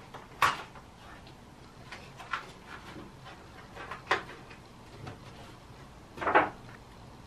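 A paper wall calendar with washi-tape corners being peeled off the wall and handled: a few short crackles of paper and tape, the loudest about half a second in and a longer one just after six seconds.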